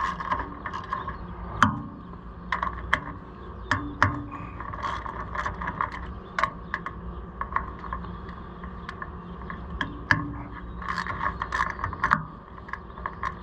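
Hand ratchet wrench clicking in several bursts as bolts are backed off, with a few sharp metal knocks between.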